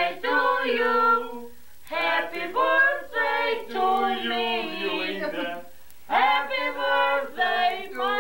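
A small group of family voices, women's voices most prominent, singing a birthday song together unaccompanied. The song comes in phrases with short breaks between them.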